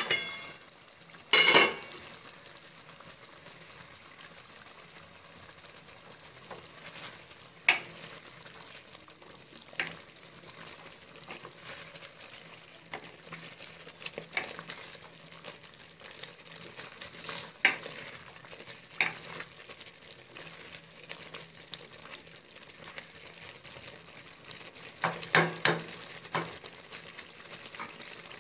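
Chicken masala sizzling as it fries in a pan, a steady hiss. A spoon stirs it and knocks against the pan now and then, loudest about a second and a half in and in a short cluster near the end.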